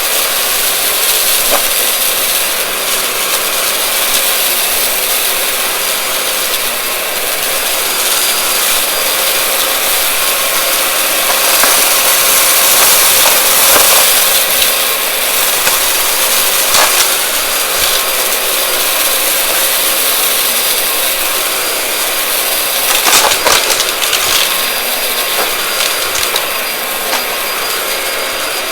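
A vacuum cleaner running, its motor whining steadily, with crackling and crunching as dry, crunchy debris is sucked up, and a few sharper snaps along the way.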